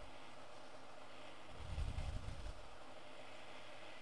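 Hot air rework station blowing a steady hiss while heating a logic board to desolder its SMC chip, with a low rumble of moving air about halfway through.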